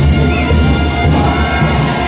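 Mexican brass band (banda) playing a chinelo dance tune, loud and steady.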